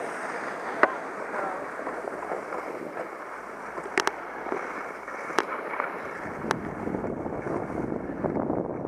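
Steady hiss of edges scraping over packed snow while sliding downhill, with wind on the microphone. Several sharp clicks or knocks break through it: one about a second in, a quick pair near the middle, and a few more later.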